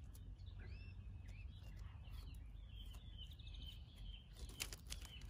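Faint small birds chirping, with short gliding calls and a brief rapid trill, over a low steady rumble; a few sharp clicks come near the end.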